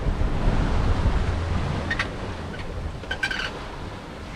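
Wind buffeting the microphone over water rushing past the stern of a Vancouver 34C sailing yacht in a rough sea. A light click about two seconds in and a brief rattle about three seconds in.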